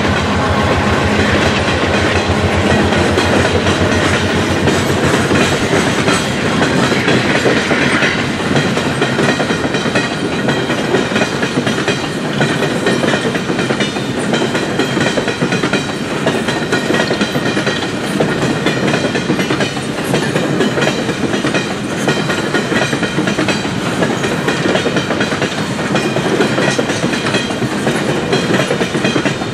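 Steel coal gondolas of a long freight train rolling past, with a steady rumble and rapid clickety-clack of wheels over rail joints. A low hum fades out in the first few seconds. Being eastbound, the coal cars are running empty.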